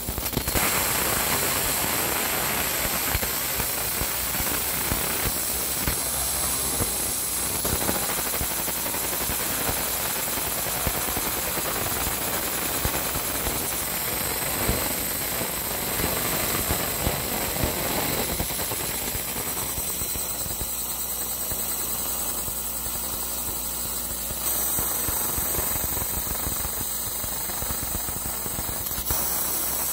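Laser engraver burning through the powder coat on a metal manifold: a steady rushing hiss with fine crackling and a thin high whine. It gets a little louder about 24 seconds in.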